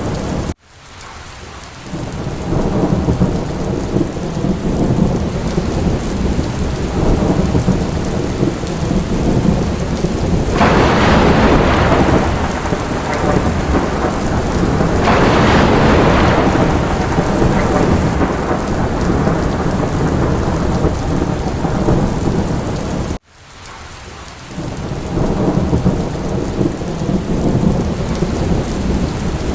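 Steady heavy rain with a deep rumble of thunder underneath, swelling louder twice in the middle. Twice the whole sound drops out abruptly and fades back in over a second or so, as at the seam of a looped recording.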